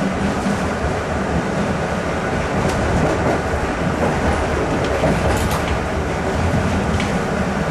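Electric multiple unit passenger train running along the track: a steady rumble of wheels on rail with a low hum, broken by a few short sharp clicks.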